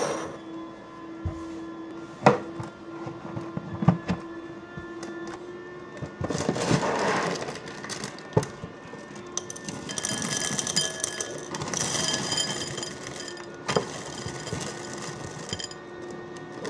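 Kitchen handling sounds: several sharp knocks of objects being set down, a rustle around the middle, and ringing clinks of dishware a little later.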